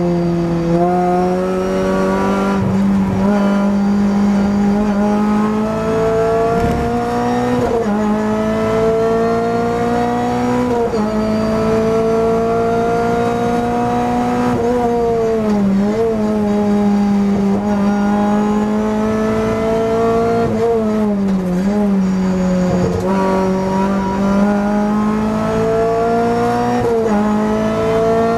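Renault Clio Cup race car's four-cylinder engine at full load, heard from inside the cockpit: its note climbs steadily and drops sharply at each gear change, with dips where the car slows for corners.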